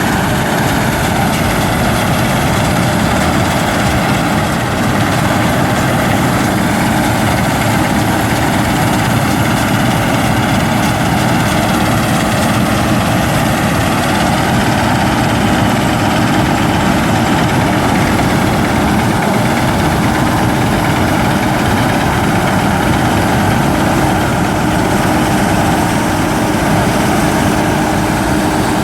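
Claas Mercator combine harvester running steadily while cutting wheat: the diesel engine and threshing machinery make a loud, constant drone with a steady hum.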